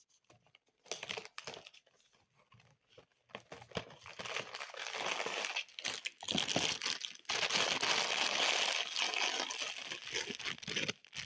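Labubu blind-box packaging being torn open and crinkled by hand: scattered light rustles at first, then a few seconds in, steady crinkling and tearing of the wrapping.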